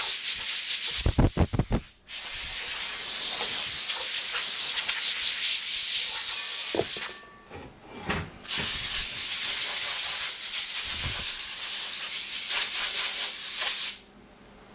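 Compressed-air blow gun hissing in three long blasts, with a steady high whistle in the hiss; the first blast is short and buffets low. It is blowing cooling air up under a welding hood.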